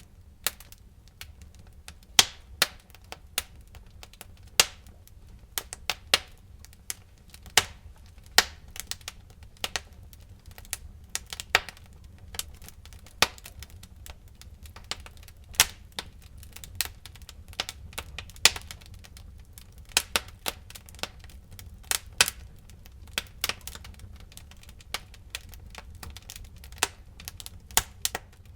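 Wood fire crackling: irregular sharp pops and snaps, several a second and of varying loudness, over a low steady rumble.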